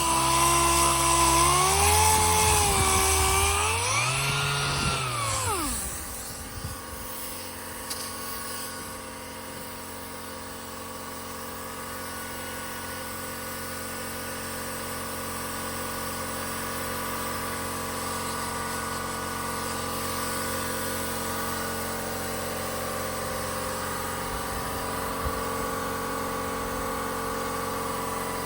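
An electric power tool runs with its speed wavering up and down, then spins down about six seconds in. A steady mechanical hum carries on after it, slowly growing a little louder.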